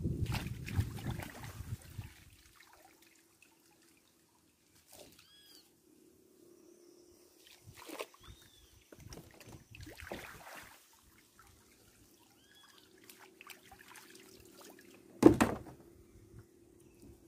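Shallow river water sloshing, splashing and dripping as a sieve is dipped and scooped along the bank to catch bait shrimp, loudest in the first couple of seconds, with one sharp, loud sound near the end. A bird gives short chirps several times.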